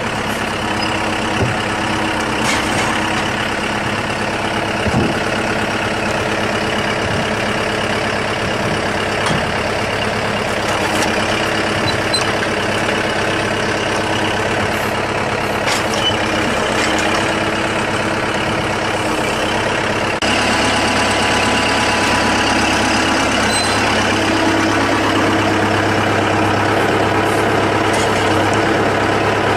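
Heavy machinery running steadily, with scattered knocks and clatter. About twenty seconds in it cuts to a louder, steadier engine hum.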